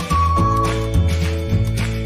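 Background music: a high, held melody line over a steady bass line that changes note about every half-second.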